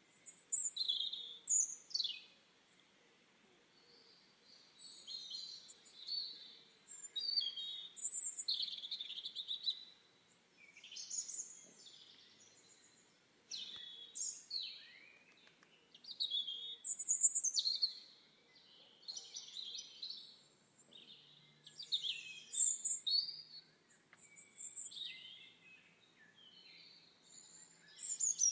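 Songbirds singing: high chirps, warbles and trills in short phrases, one after another every second or two, over a faint background hiss.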